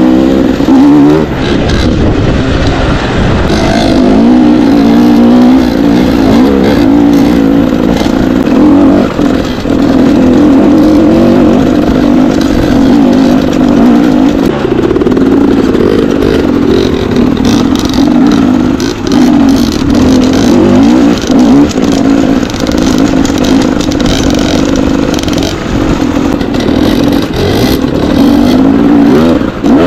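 Dirt bike engine running hard, its pitch rising and falling constantly as the throttle is worked, with scattered short clicks and clatter over the top.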